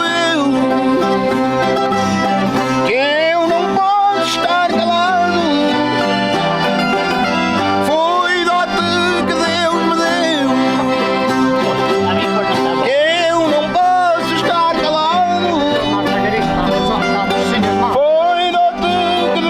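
Live folk music on plucked string instruments and an accordion, playing steadily, with singing voices coming in on phrases about every five seconds.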